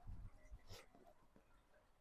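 Near silence, with a few faint low bumps and soft clicks in the first second.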